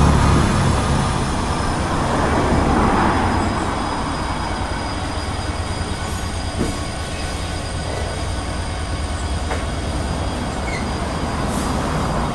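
Loaded container wagons of a freight train rolling steadily past on the rails. For the first few seconds the deep rumble of the Class 66 diesel locomotive's engine is also heard, fading as the locomotive pulls away.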